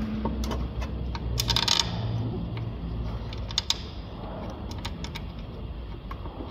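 Light metallic clicks and taps of parts being handled under a car, with a short burst of rapid clicking about one and a half seconds in and a couple of sharper clicks later on.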